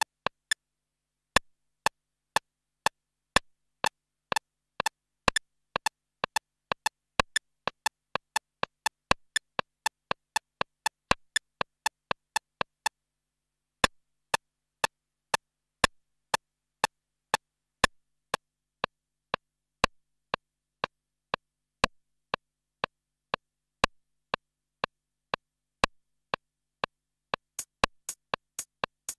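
Two drum machines, a Korg Electribe SX and an Akai MPC500, playing a sparse pattern of short clicky hits locked to a shared MIDI clock. The slave's part is first shifted by an eighth note, then brought back in line with no shift. The pattern stops briefly just after the start and again about 13 seconds in.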